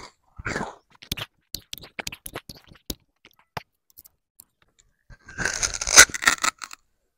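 Sugarcane being eaten: crisp clicks and snaps as the fibrous cane is chewed and its rind torn off with the teeth, then a loud crunching bite into the cane about five seconds in, lasting about a second.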